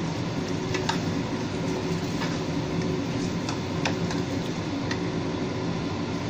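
Wooden spatula stirring chicken in coconut milk in a nonstick wok, with a few light clicks and taps against the pan, over a steady hum.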